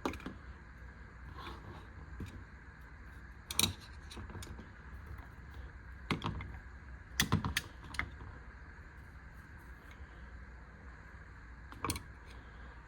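Tools being handled: scattered sharp clicks and knocks of screwdrivers with hard plastic handles, a few seconds apart with a small cluster in the middle, over a steady low hum.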